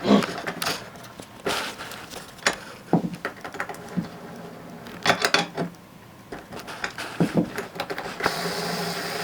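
Irregular clicks and knocks of metal hardware being handled, the sound of skateboard trucks being worked on. About eight seconds in a steady mechanical hum starts and keeps going.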